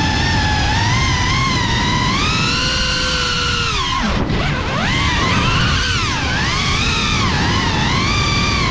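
FPV quadcopter's brushless motors whining, their pitch rising and falling with the throttle, with a sharp dip and climb about four seconds in as the throttle is cut and punched back. A low rushing noise runs underneath.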